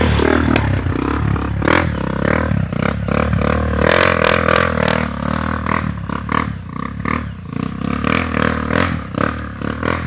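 Honda XR200 trail bike's single-cylinder four-stroke engine running at low revs, with frequent clattering and knocking as the bike jolts along the trail.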